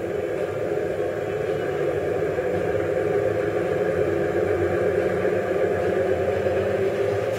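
Magnet motor-generator, a neodymium-magnet rotor spinning inside a coil stator, running up with no load after a push start: a steady whirring hum that grows slightly louder as its speed rises.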